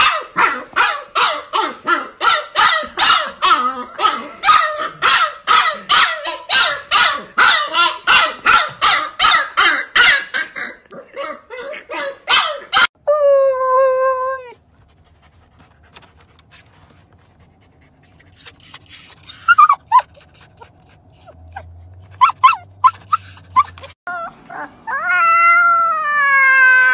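Husky puppy barking rapidly and without pause, about two to three barks a second, for some twelve seconds. Then a husky gives a short howl, a few scattered high yips follow, and near the end a very young husky puppy lets out a long little howl that rises and falls in pitch.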